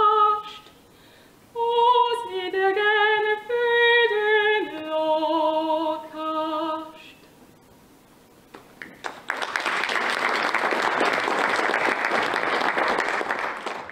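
A young woman singing a folk song solo and unaccompanied, closing on a long held note about seven seconds in. After a short pause, applause starts and carries on to the end.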